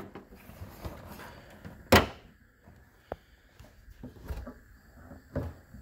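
Clicks and clunks of a 2025 Subaru Outback's hood being raised and its prop rod unclipped and set in place, with one sharp click about two seconds in the loudest and a few lighter knocks around it.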